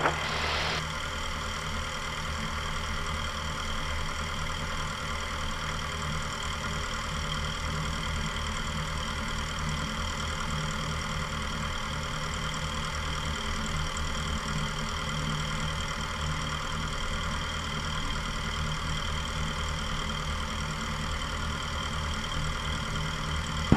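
Cessna 172 Skyhawk's piston engine and propeller droning steadily in flight on the approach to land, with a short burst of hiss at the very start.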